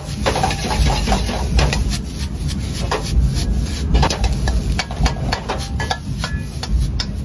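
Metal ladle knocking and scraping against a wok while fried rice is tossed and stirred: an irregular run of sharp clanks and scrapes over a steady low rumble.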